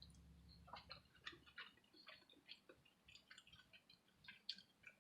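Near silence with faint, irregular soft clicks of a person chewing food with the mouth close to the microphone.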